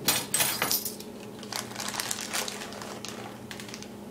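Metal measuring spoons clattering as they are picked up, the loudest burst coming about the first second, then lighter clicks and plastic crinkling as a bag of mini chocolate chips is handled and chips are scooped out.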